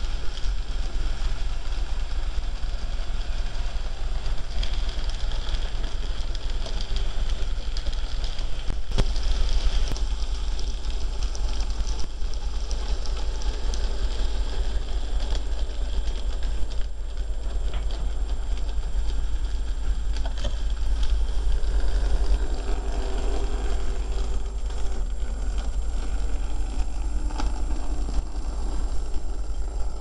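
N-scale model trains running along the layout's track: a steady mechanical running noise of small motors and wheels on rail, over a constant low hum.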